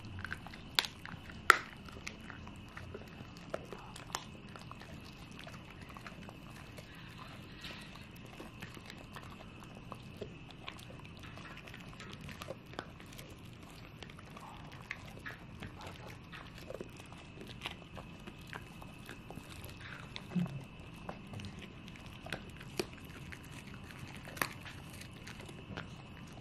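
Dogs chewing homemade treats close to the microphone: irregular crunches and wet mouth clicks, the two loudest crunches about a second and a half in.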